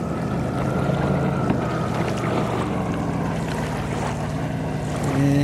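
Motorboat engine running at a steady pitch over the rush of wind and water, with a stronger, louder engine tone coming in near the end.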